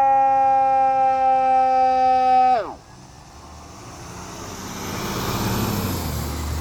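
Fire truck air horn sounding one long steady blast that sags slightly in pitch, then drops sharply in pitch and cuts off about two and a half seconds in. A truck engine's rumble then grows louder.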